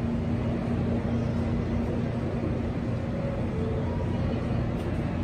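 Steady low rumble of an underground subway station, with a constant low hum running through it and no rise or fall in level.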